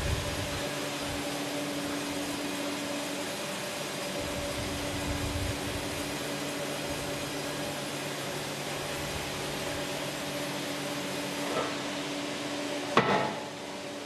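Sawmill machinery running steadily with a low hum. Near the end comes a small knock, then a sharp crack and a heavy thud as a freshly sawn wood slab topples off the log onto the log carriage.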